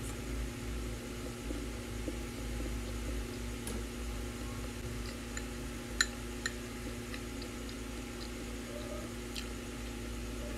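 Steady hum of an electric fan running, with a metal spoon clicking against a glass sauce bowl twice about six seconds in.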